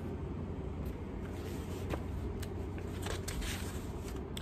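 Faint rustling and a few soft clicks of a paperback book being handled and lowered, over a steady low hum.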